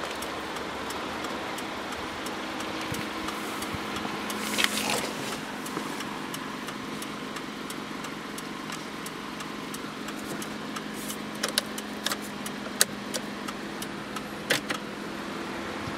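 Steady low hum of the 2013 FAW V5 car running, heard from inside the cabin, with scattered sharp clicks and taps from the interior controls being handled, most of them in the second half.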